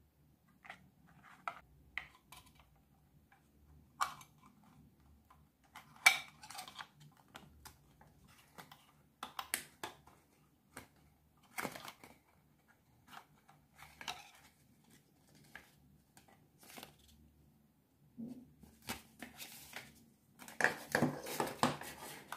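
Handling noise from a plastic Holga 120 camera: scattered clicks, taps and short rustles as the 120 film roll and its spool are taken out of the open film compartment, with a denser run of plastic handling noise near the end.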